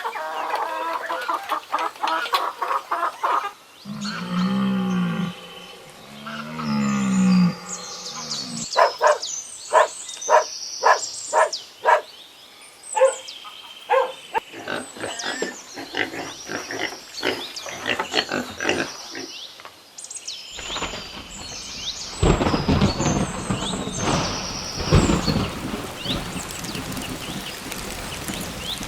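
A run of different animal calls, changing every few seconds: some pitched calls, then a few deep drawn-out calls, then a string of short sharp calls. From about two-thirds of the way through, a steady rush of rain takes over, with deep rumbles like thunder.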